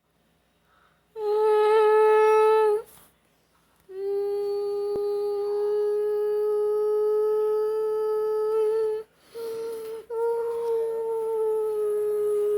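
A voice humming one steady, nearly unchanging note, held in four stretches with short breaks between them: a short one about a second in, a long one of about five seconds, a brief one, and then another that carries on past the end.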